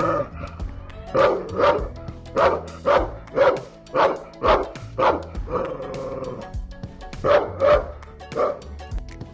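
Pitbull barking loudly in quick runs of short barks, about two a second, with one longer drawn-out call about six seconds in. Background music runs underneath.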